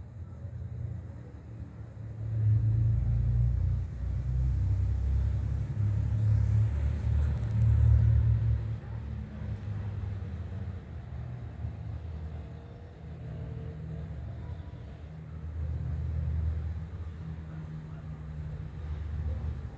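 Low, uneven outdoor rumble with no clear tone, swelling and fading in irregular surges. It is loudest in two stretches in the first half and swells again near the end.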